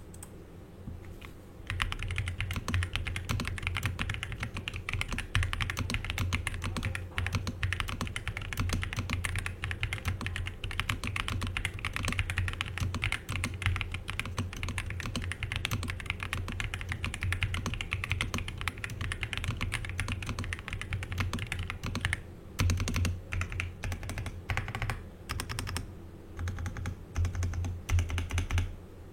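Ajazz AK980 mechanical keyboard with Sunflower Bunny switches and double-shot PBT keycaps being typed on quickly, a fast steady run of keystrokes with a fairly thocky sound. The typing starts about two seconds in and breaks into shorter bursts with brief pauses near the end.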